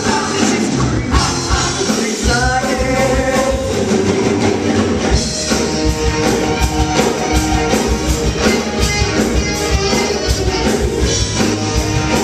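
Live rock-and-roll band music with voices singing over a steady beat.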